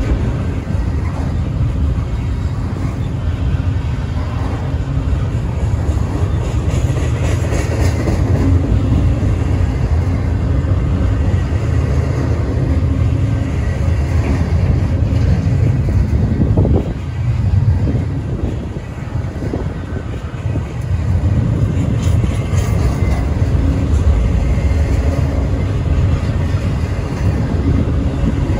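Double-stack container well cars of a freight train rolling past close by: a steady low rumble of steel wheels on rail that eases briefly a little past halfway, then returns.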